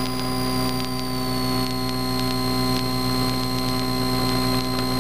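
Cessna 152's four-cylinder Lycoming engine and propeller droning steadily in level flight, heard in the cockpit as a hum with a high whine that drops slightly in pitch between one and two seconds in.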